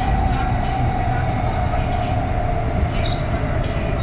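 Kintetsu 3200-series train heard from inside a motor car: the whine of its early Mitsubishi GTO-VVVF inverter and traction motors falls slowly in pitch as the train slows, over a steady rumble of wheels on rail.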